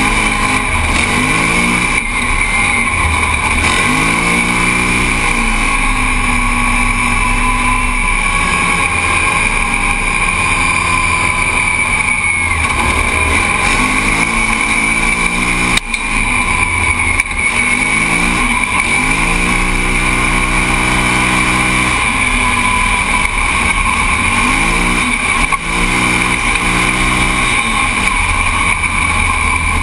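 Rotax engine of a Yamaha Rhino race UTV heard from inside the cockpit, its pitch climbing and dropping several times as the driver accelerates and lifts, over a steady high whine and constant rushing noise.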